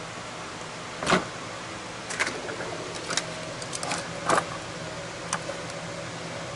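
Scattered short clicks and knocks, about half a dozen, from hands handling a plastic headlight housing, its wiring and a soldering iron while soldering, the sharpest about a second in and around four seconds in, over a steady low hum.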